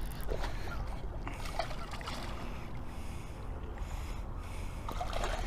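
Outdoor river ambience: a steady low rumble of moving water and wind on the microphone, with a few short clicks or rustles of handling, about half a second in, around a second and a half in, and near the end.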